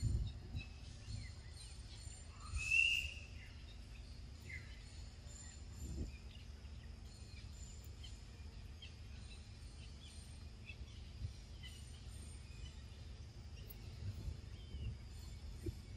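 Outdoor natural ambience: a low steady rumble with faint scattered bird chirps, and one short, louder bird call about three seconds in.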